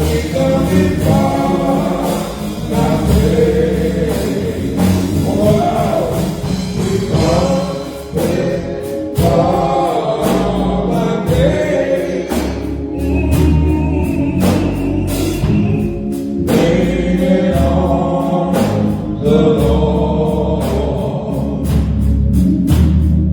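Gospel song with choir singing over a band with bass and drums.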